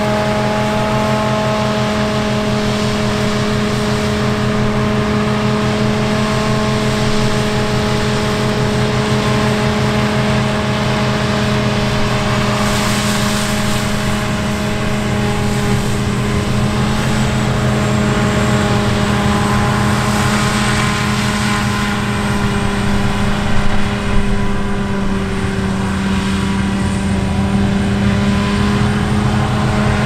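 Claas Lexion 8900 combine harvester working under load in grain: a steady engine drone at an even pitch mixed with the rushing noise of the threshing machinery.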